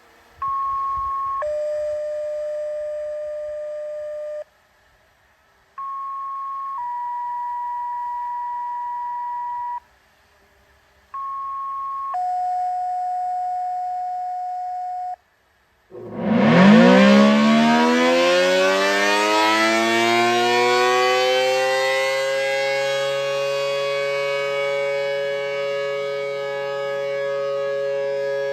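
Three sets of sequential radio activation tones, each a short higher beep followed by a longer lower tone, then an ACA P-10 tornado siren starts about halfway through, winding up slowly with its pitch rising for several seconds before settling into a steady wail. The sluggish wind-up is put down by the owner to a bad run winding in the motor.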